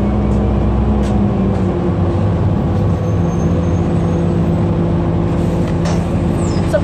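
Cabin sound of a 2006 Orion VII hybrid-electric city bus under way at low speed: a steady drive hum with several steady tones. A brief high falling squeal comes near the end.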